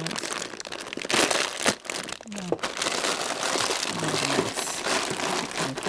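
Plastic bag of walnuts crinkling and rustling as it is handled, with a few sharper crackles in the first two seconds.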